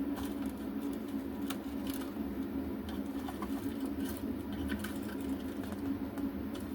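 Scattered light clicks and rattles of small components being sorted by hand in a resistor drawer, over a steady low hum.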